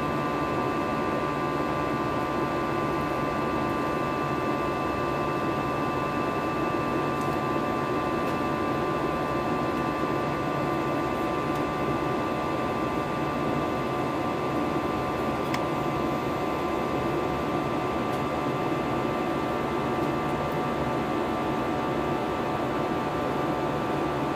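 Steady cabin noise of an Airbus A321-211 in climb, heard from a window seat by the wing: its CFM56-5B turbofan engines run with an even rush of air and a few steady whining tones, unchanging throughout.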